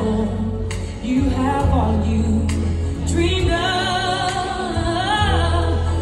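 A woman's singing voice over a loud backing track with heavy bass, played through a theatre sound system.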